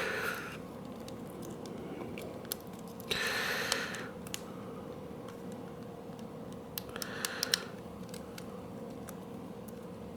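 Small clicks and scraping of plastic camera parts being handled and pressed together during reassembly, with two short rustling, scraping stretches about three seconds in and again near seven seconds, over a faint steady hum.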